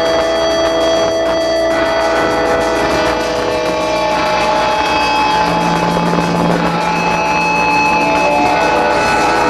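Live band music, loud and steady: a dense wash of held, sustained notes with no beat standing out.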